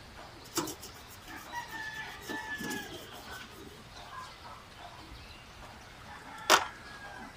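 A rooster crowing faintly, one call about two seconds in, over the light rubbing of a cloth wiped across the underside of a car hood. A single sharp knock near the end is the loudest sound.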